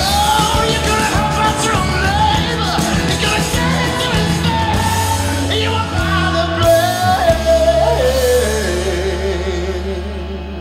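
Music: the closing bars of a song, a sung melody over sustained low chords, fading out over the last couple of seconds.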